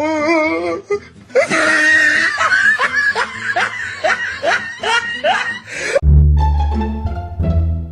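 A person laughing hard, a run of rising peals about twice a second. About six seconds in it cuts abruptly to music with plucked strings and a deep bass.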